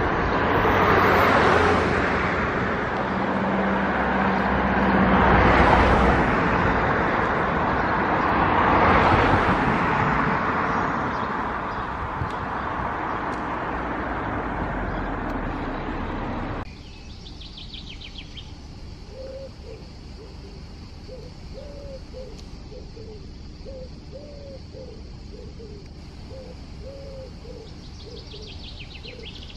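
Road traffic passing, a rushing noise that swells and fades three times. About two-thirds of the way in it cuts to a much quieter background where a bird calls in short, repeated low notes, with a few high chirps.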